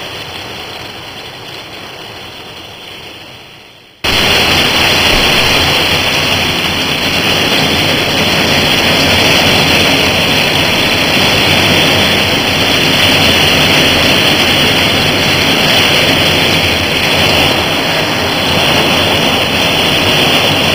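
Heavy rain pouring down in a summer thunderstorm, a steady loud hiss. A quieter stretch fades away over the first few seconds, then the loud downpour cuts in abruptly about four seconds in.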